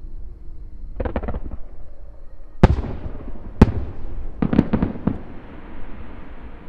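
Aerial fireworks shells bursting. A quick cluster of pops comes about a second in, then two sharp, loud bangs about a second apart, then another rapid cluster of bursts, each trailing off.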